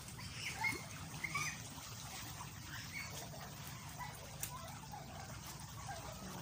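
Shallow seawater trickling and gurgling among rocks at the water's edge as the tide goes out, with scattered small drip-like plinks, over a low rumble.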